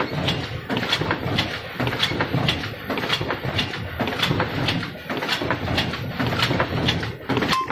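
Folder-gluer feeding corrugated cardboard blanks: a steady mechanical rumble with sharp clacks recurring about two to three times a second as the machine runs.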